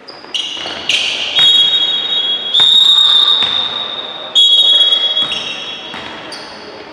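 Referee's whistle blown in several shrill blasts in a row, each about a second long and starting and stopping abruptly, over the noise of a basketball court in a large hall.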